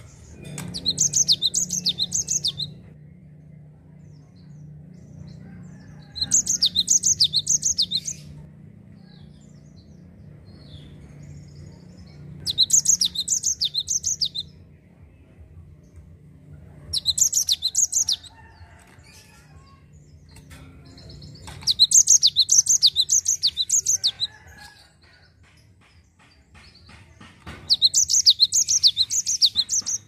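Cinereous tit (gelatik batu) singing in six bouts, roughly every five seconds. Each bout is a fast run of high, repeated notes lasting about two seconds.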